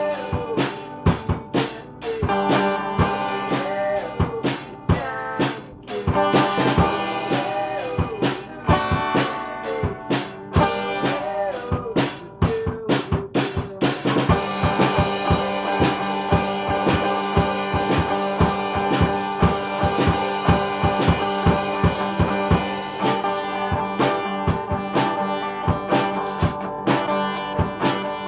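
Music: a drum kit keeping a steady beat with guitar, a sliding melody line over the first half, the sound growing fuller about halfway through.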